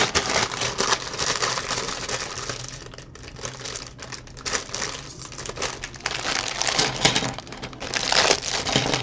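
Crinkling plastic parts bag being handled, with small LEGO pieces clicking and rattling against one another. The noise comes in several bouts of crackle.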